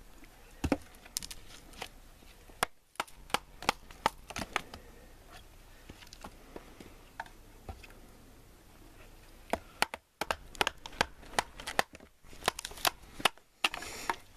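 Knives being batoned through firewood: a wooden baton knocking on the knife spines in quick irregular strikes as the wood splits. The knocks come in a run at first, thin out in the middle, then come thick again near the end.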